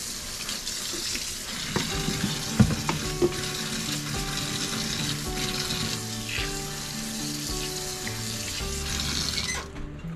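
Kitchen faucet running into a stainless steel sink while hands are washed under the stream, a steady hiss of water; the tap is turned off shortly before the end and the water stops suddenly. Faint background music underneath.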